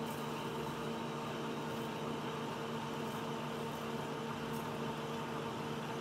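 Metal lathe running steadily while an 11/16-inch twist drill in the tailstock, driven by the power feed, bores through the spinning workpiece. The sound is a steady hum with a few held tones from the machine over an even hiss.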